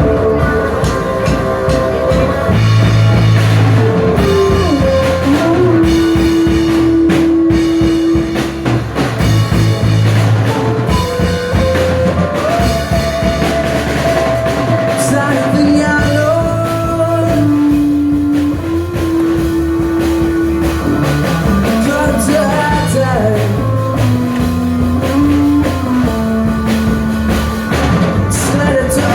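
A live rock band playing, with drum kit, guitar and a voice singing long held notes.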